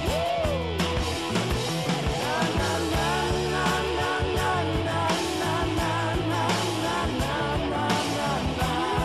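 Rock music soundtrack: a steady beat with bass and drums under a wavering lead line.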